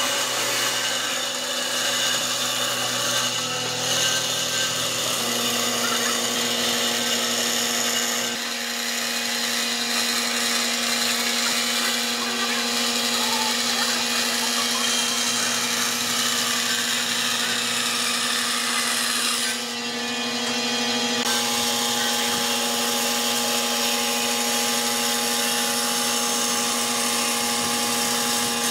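Bandsaw running and cutting a curve through a thick wooden board: a steady motor hum under the noisy rasp of the blade in the wood. The level dips briefly about twenty seconds in.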